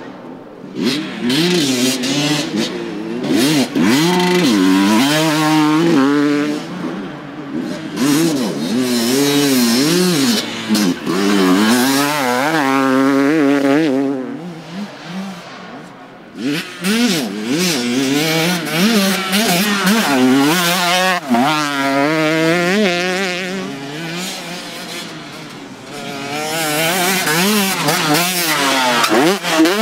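Enduro motorcycles revving hard through a field special test, their engine pitch rising and falling quickly with throttle and gear changes as several bikes pass in turn. Between riders the sound fades briefly before the next bike comes through.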